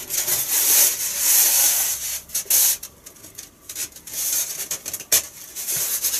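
Foam wing parts being pushed and rubbed against each other by hand, a scratchy hiss that comes in spells, with a sharp click about five seconds in.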